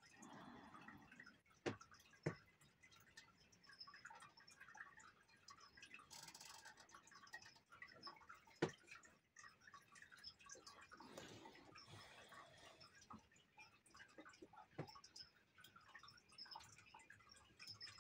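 Faint sounds of watercolour painting: a brush dabbing and stroking on paper, with three light sharp taps, two close together about two seconds in and a louder one near the middle.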